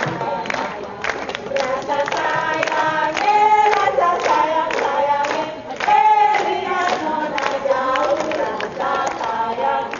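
A group of voices, adults and children, singing together, with sharp percussive strokes sounding throughout.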